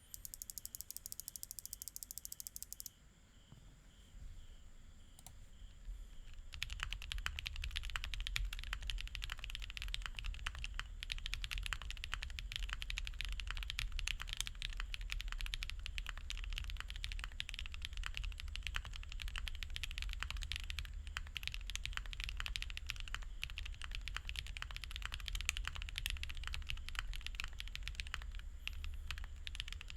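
Fast typing on a QK60 R2 60% mechanical keyboard with lubed SWK Jieum V2 switches, PCB foam and EPBT PBT keycaps: a dense, steady run of keystrokes starting about six seconds in. Before that, a high, rapidly pulsing sound lasts about three seconds.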